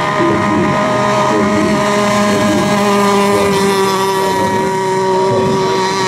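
Several radio-controlled racing boats running at speed, their motors giving overlapping steady high whines at different pitches.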